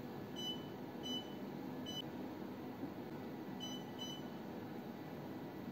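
Touchscreen control panel of a hydrafacial machine beeping as buttons are pressed. Five short high beeps: three evenly spaced in the first two seconds, then two quick ones about four seconds in.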